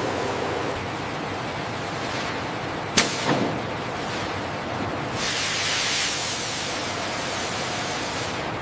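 Steady factory machinery noise, with a sharp knock about three seconds in and a hiss that swells from about five seconds and fades over the next two.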